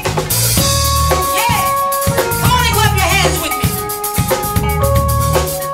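Live R&B band playing a groove: drum kit, a repeating bass line and sustained keyboard chords, with a short sung phrase or vocal ad-lib about two and a half seconds in.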